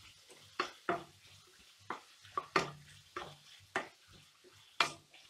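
Wooden spatula scraping and knocking against a nonstick kadai while stirring sliced onions frying in oil, in irregular strokes roughly every half second to second.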